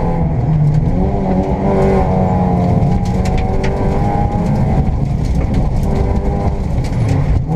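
Škoda Fabia 1.4 rally car's engine heard from inside the cabin at stage pace, its pitch rising and falling continuously, over steady road noise with scattered light clicks.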